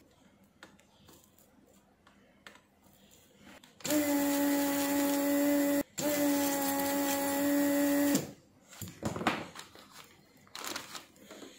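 Vacuum pump of a Weller desoldering station running in two bursts of about two seconds each, a steady humming whine with a brief break between them, as the desoldering iron sucks molten solder off a capacitor's leads so it can be lifted off the circuit board.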